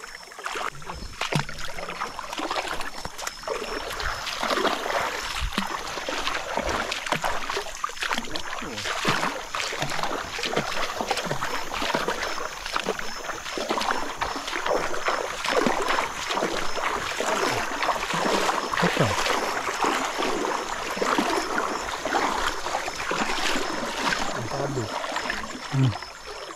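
Shallow river water sloshing and splashing without pause, in many small irregular splashes, as a fishing net is worked in the water.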